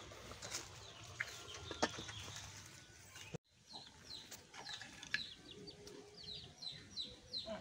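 Chicks peeping: a run of short, falling cheeps, two or three a second, starting about halfway through. Before that come a few light clinks, like a metal pot lid and ladle knocking.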